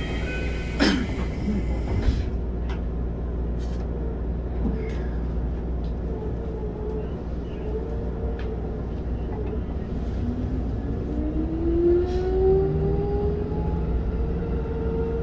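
Keikyu 1500 series field-chopper-controlled electric train pulling away, heard from inside the car: a steady low rumble, then from about ten seconds in the traction motors' whine rising steadily in pitch as the train accelerates. Two sharp knocks sound about one and two seconds in.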